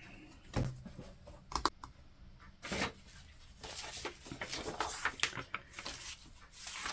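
Small handling noises on a tabletop: a few separate knocks and clicks, then a couple of seconds of quicker small clicks and rustling.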